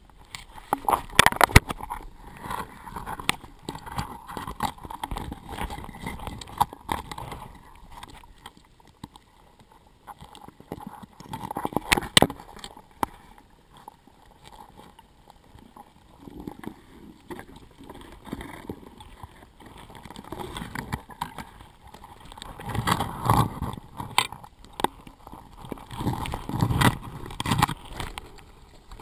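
Underwater knocks and scrapes as a speargun shaft grinds against rock while a speared grouper is worked out of its hole, heard through the camera's housing. The clatter comes in irregular bursts, loudest near the start, about twelve seconds in, and again near the end as the fish comes free.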